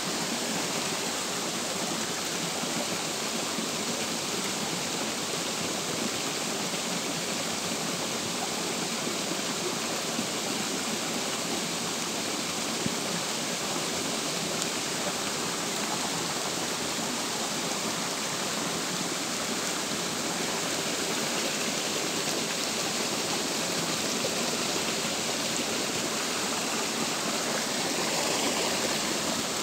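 Steady rain falling on a shallow stream and the leafy undergrowth around it: an even, unbroken hiss of drops on water and leaves.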